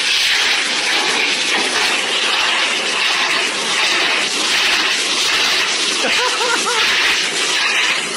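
High-velocity pet grooming dryer blowing a loud, steady rush of air at close range.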